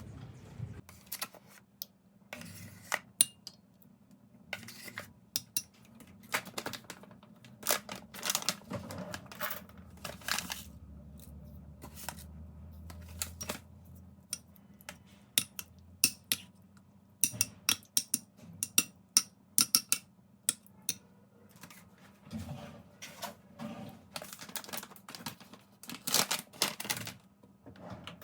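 Close-up handling sounds: an uneven string of light taps, clicks and crisp rustles as small objects are picked up and set down.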